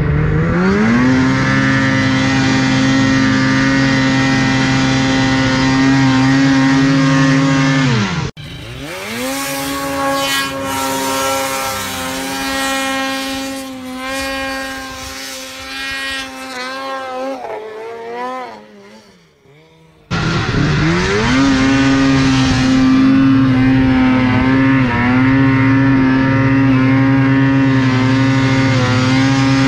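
800cc two-stroke mountain snowmobile engines at high revs in deep powder. A close engine revs up and holds steady at full throttle; then, abruptly, another sled is heard from farther off, its pitch rising and falling as it fades away; then a close engine again revs up and holds steady, easing off briefly near the end.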